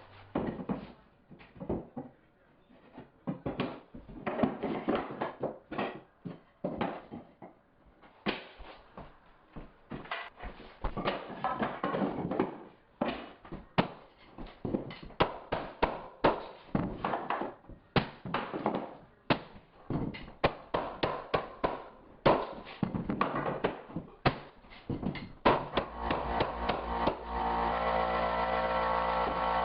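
Hardwood floor boards being knocked into place, a run of irregular sharp knocks and taps with some scraping between them. A steady motor hum starts near the end.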